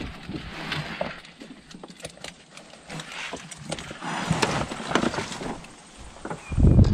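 Fishing gear being handled in a car's cargo area as a spinning rod is lifted out: rustling with scattered light knocks and clicks. A low rumble comes in near the end.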